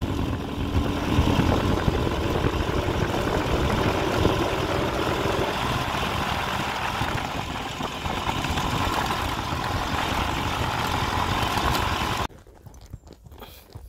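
Small motorcycle's engine running steadily while riding, heard from the handlebars along with riding noise. About twelve seconds in the sound cuts off abruptly, leaving only faint sounds.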